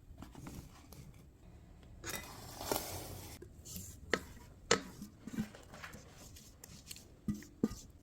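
Kitchen utensil handling while preparing cake batter: a rustling scrape about two seconds in, then a few sharp clicks and taps.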